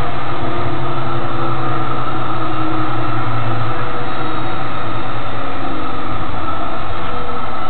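Tram car running, heard from inside the car: a steady rumble of wheels on the rails with a low hum that holds throughout.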